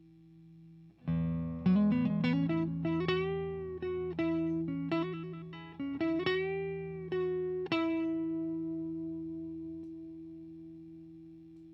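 PRS Silver Sky electric guitar played through an HTJ Works Valve Crystal 12AX7 tube preamp pedal into a 6L6 tube amp. A chord is struck about a second in, then a lick of picked single notes with two bent notes follows, and the last note rings out and slowly fades.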